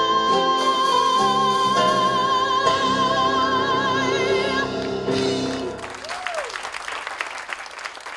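A woman belting the song's final high note, held long with vibrato over keyboard accompaniment, which ends with a last chord about five seconds in. Audience applause then follows and gradually fades.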